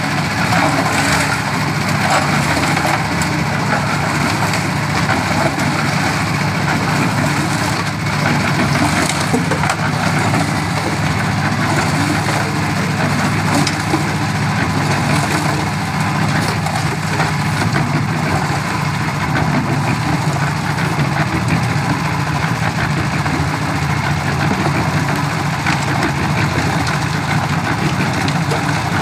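Small engine of a portable concrete mixer running steadily, its drum turning and churning a gravelly concrete mix with a constant rattle.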